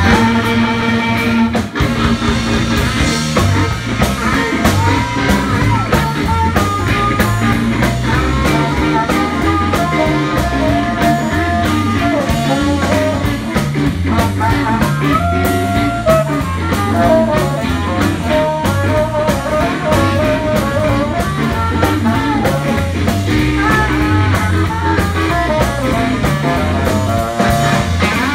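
Live band playing: a saxophone over electric guitar, bass guitar and drum kit, with a steady beat and walking bass line.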